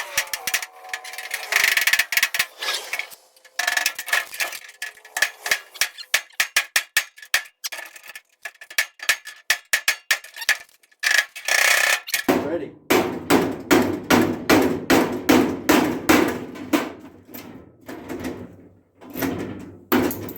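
Hammer blows on the metal toolbox, struck over and over in quick succession with a ringing tone at first. From about twelve seconds in come heavier, duller strikes at roughly three or four a second.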